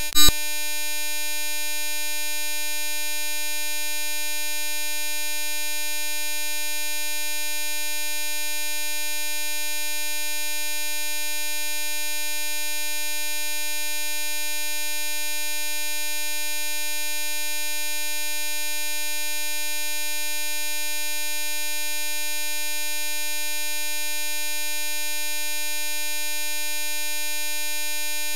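A steady electronic buzzing tone held at one unchanging pitch without a break, rich in overtones, the kind of stuck, frozen audio loop used as a glitch effect; a brief blip sounds just at the start.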